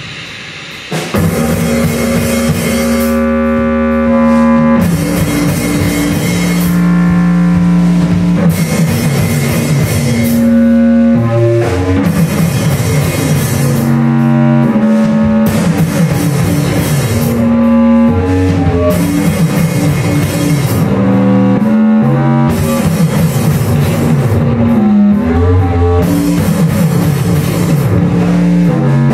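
Live rock band playing loud: a drum kit keeping a steady beat under sustained electric guitar notes that step up and down in pitch. The music dips briefly in the first second, then carries on at full volume.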